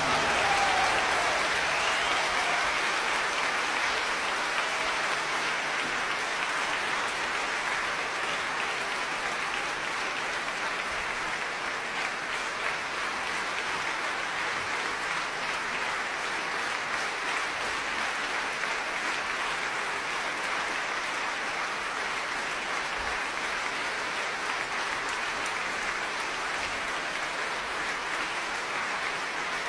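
Sustained audience applause, easing slightly over the first ten seconds and then holding steady.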